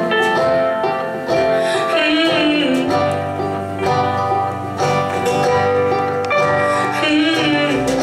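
Live folk-rock band playing: guitars, a banjo and drums, with a bending lead line twice.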